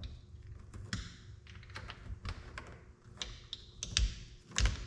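Irregular light clicks and taps of vise jaws being picked up and handled, with two louder knocks near the end.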